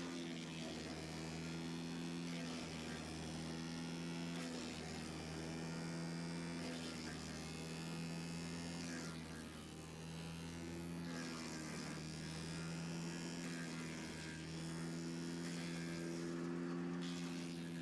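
A steady low hum made of several even tones that swell and fade slowly.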